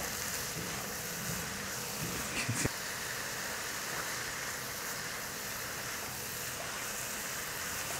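Shredded cabbage sizzling softly in a nonstick kadai as it is stirred with a wooden spatula, with a brief scrape and a light knock about two and a half seconds in.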